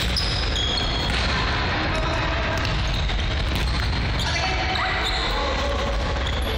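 Indoor futsal play on a wooden court: the ball thudding and bouncing off feet and floor, with short squeaks of shoes and players' voices in the hall.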